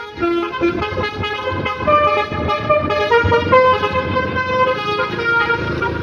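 A bus's telolet "basuri" musical horn playing a tune of held notes that step up and down in pitch as the coach pulls away.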